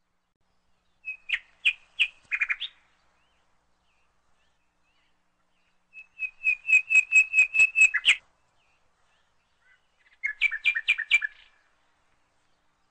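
A small bird chirping in three bouts of quick repeated chirps: a short run about a second in, a longer run of about a dozen chirps from about six seconds in, and another short run near the end.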